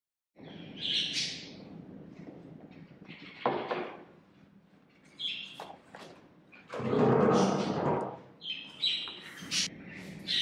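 A bird chirping in short calls, four or five times, over a low steady hum. About seven seconds in comes a louder noise lasting over a second.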